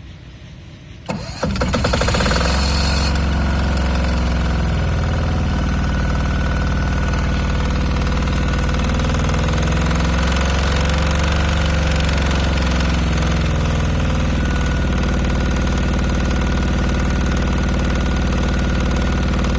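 8 kW diesel generator engine starting about a second in: a brief crank, then it catches and runs on steadily. Its pitch wavers slightly for several seconds, then settles.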